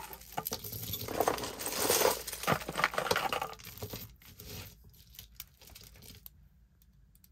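A pile of costume jewelry shuffled by hand: beaded necklaces, faux pearls and metal chains clicking, clinking and rustling against one another. The handling thins out after about four seconds.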